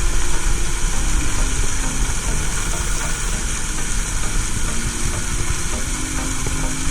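Waterfall roar heard close up: a steady, loud rush of falling water with a deep rumble underneath.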